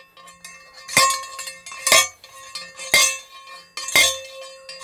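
Hand post driver striking the top of a galvanized steel ground rod, four blows about a second apart, each with a metallic ring, driving the rod into the ground.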